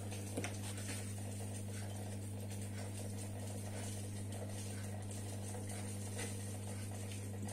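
Steady low hum of aquarium equipment running, with a few faint ticks.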